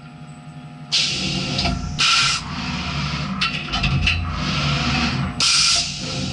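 CNC vertical milling machine with its spindle stopped between cuts: a low steady hum under four short, sharp hisses, each lasting under a second.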